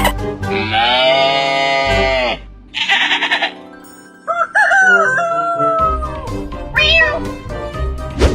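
Background music with a run of short, pitched comic sound effects laid over it, several of them sliding up or down in pitch.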